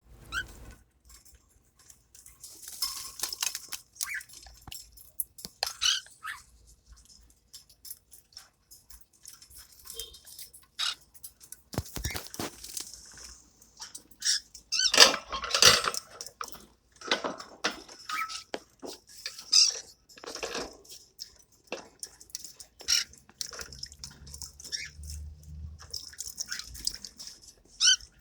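Young parrots bathing in water: intermittent splashing and dripping, with a busier burst of splashing about halfway through.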